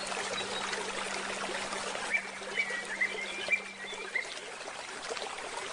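Flowing river water with songbirds chirping: a quick string of short chirps comes between about two and four seconds in. A low held tone fades out about four seconds in.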